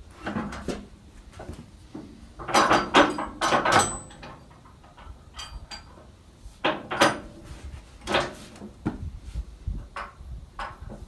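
Metal clanks and rattles from a Hudson bandsaw mill's log clamp being worked tight against a log, with a loud cluster of knocks a couple of seconds in and a few single clunks later.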